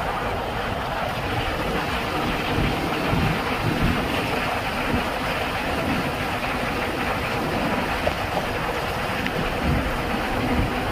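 Steady road and wind noise from a moving vehicle cruising at speed: an even rumble and rush with no sudden events.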